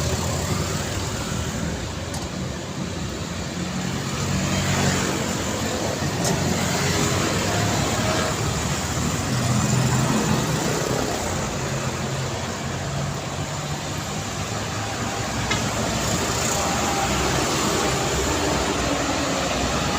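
Busy road traffic: a steady wash of engines and tyres from passing cars and trucks, swelling and easing as vehicles go by, with low engine hum running underneath.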